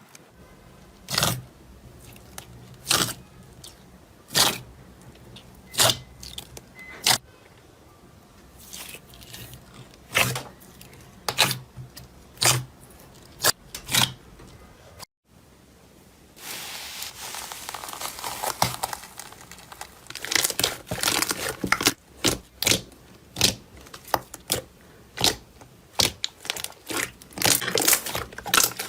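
Slime being handled, making sharp pops and crackles about every second and a half. After a short break near the middle, it turns into a denser run of crackling and snapping.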